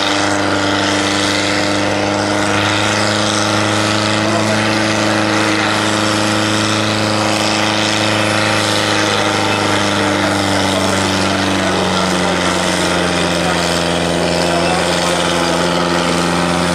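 Diesel engine of a pulling tractor running flat out under heavy load as it drags a weight-transfer sled, a steady drone. About twelve seconds in the pitch sags slightly as the growing drag pulls the engine down.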